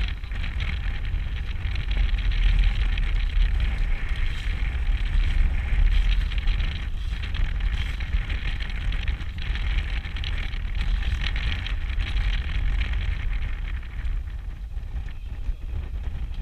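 Strong wind, about 70 km/h, buffeting the camera's microphone: a heavy, uneven low rumble with a steady hiss above it.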